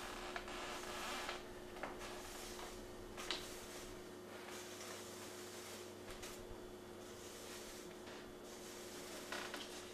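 Paper rustling as mail and an envelope are handled on a table, with a few brief light taps, over a steady low electrical hum.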